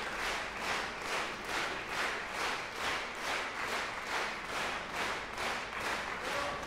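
Concert hall audience applauding in unison: rhythmic clapping at a steady beat of a little over two claps a second.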